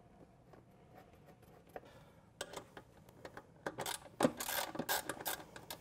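Socket ratchet clicking in short bursts as a bolt is run in, with a few faint clicks of handling before the ratcheting starts about two and a half seconds in.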